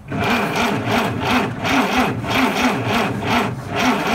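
Dodge D300 truck engine cranking on its starter motor without firing, a whirr that rises and falls about three times a second, with a short pause near the end. A hand is held over the carburettor throat to choke it and draw fuel in an engine that has stood unused for about twenty years.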